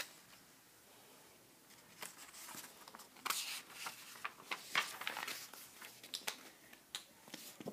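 Paper rustling and crinkling as a page of a thin paperback workbook is turned, a run of short crackly rustles starting about two seconds in.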